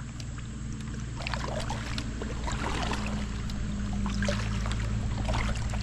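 Paddling an inflatable kayak on a shallow river: water splashing and trickling off the paddle and around the hull in small irregular splashes, over a steady low hum.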